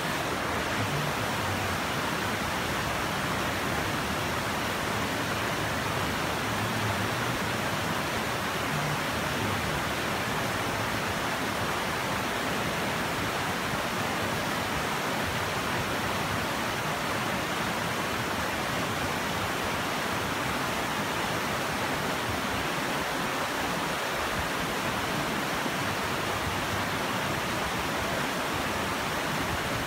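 Shallow rocky river running in rapids over boulders: a steady rush of water that does not change.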